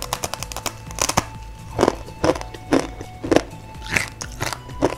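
Crisp fried lidi snack sticks (Lidi Si Umang mie lidi) being bitten and chewed close to the microphone: a quick cluster of crackling snaps about a second in, then a run of loud crunches roughly every half second.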